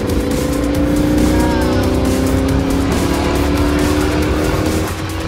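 A car engine running at high revs, its pitch climbing slowly for several seconds before dropping away near the end, with music playing alongside.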